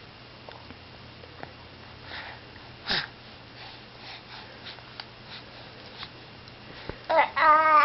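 Baby mouthing and sucking on his toes: faint wet smacking clicks and breathy sniffs, one louder breath about three seconds in. Near the end, a short high-pitched wavering baby vocalisation.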